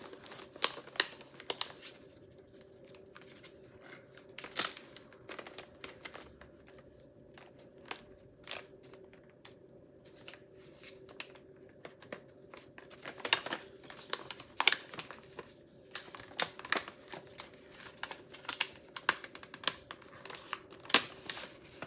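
Stiff white wrapping paper being unfolded and pulled away from a gift box by hand: irregular crinkles and rustles, sparse at first and coming thicker in the second half.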